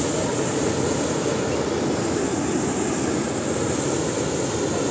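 Hot air balloon's propane burner firing, a steady roar of flame heating the air in the envelope.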